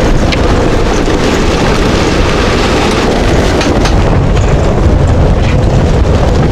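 Hurricane wind blasting over the sailboat, with rain driving against the cabin windows and heavy wind buffeting on the microphone: a loud, continuous rushing rumble.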